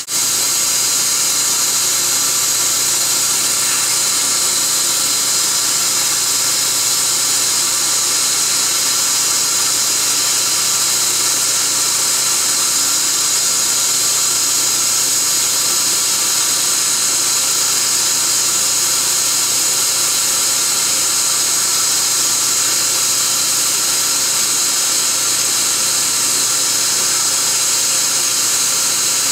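Dental treatment equipment running without pause through a laser root canal: a loud, even hiss strongest in the high range, with several faint steady whining tones under it.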